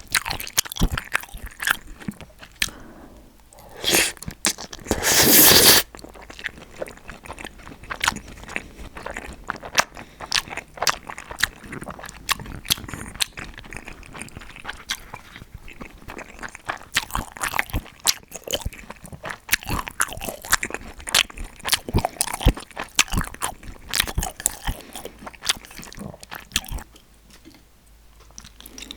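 Close-miked eating: crunching bites and chewing, with many short crackles and wet mouth clicks. About five seconds in there is a loud noisy burst lasting under a second.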